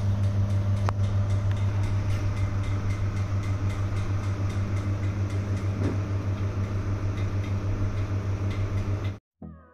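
GETIDY 23L flash autoclave running its cycle: a steady low electric hum from its pump with a fast, even pulsing, about four beats a second. It cuts off suddenly near the end, where music begins.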